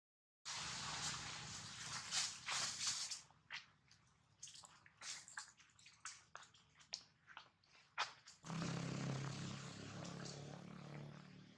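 Faint rustling with a run of sharp, separate clicks and crackles, as of dry leaves and twigs on a forest floor, then from about three quarters of the way through a steady low hum with hiss.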